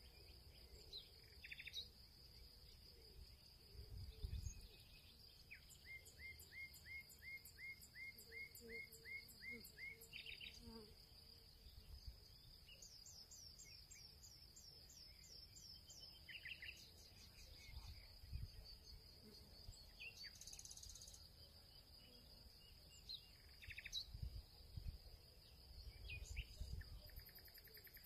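Faint background of insects and birds: a steady high insect trill, with a bird giving a run of about ten even chirps and later a quick series of falling notes. A few soft low thumps come through as well.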